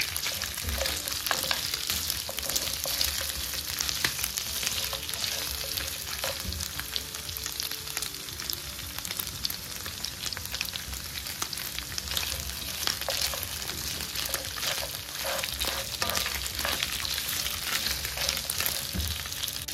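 Pieces of goat meat sizzling in hot ghee in a pan, with a steady hiss and many small crackles, while a spatula stirs them: the meat is browning now that its own juices have cooked off.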